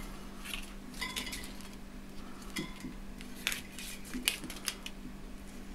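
Light, scattered clicks and clinks of a bicycle wheel being handled, its metal rim and spokes knocking and shifting, with some rustle of plastic rim tape.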